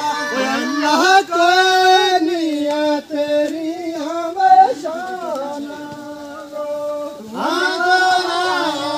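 A voice singing a melody in long, wavering held notes, with brief breaks for breath and one louder note about halfway through.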